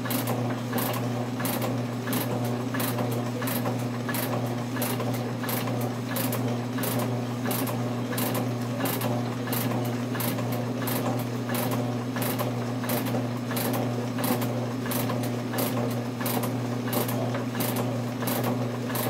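Metal shaper running and planing an aluminium block: a steady motor hum under a regular, rapid clicking that repeats with the ram's strokes.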